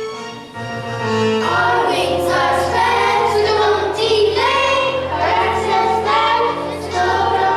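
A song from a stage musical: several voices singing together over instrumental accompaniment with a steady bass line. The singing comes in about a second and a half in, after a held instrumental note.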